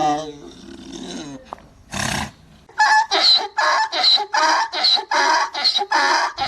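Donkey braying: a falling call at the start, a short breathy rasp about two seconds in, then a fast run of loud, rhythmic hee-haw pulses, about three a second.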